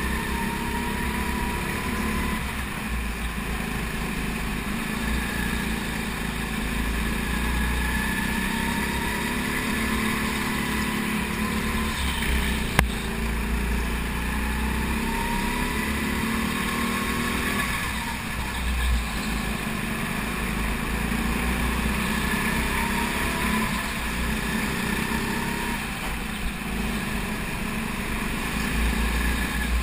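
Go-kart engine heard onboard at racing speed, its pitch rising along the straights and falling into the corners, over and over. A single sharp knock about 13 seconds in.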